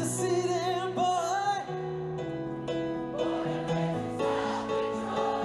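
A live band on an outdoor stage playing a slow song: a singer holds wavering notes over sustained chords.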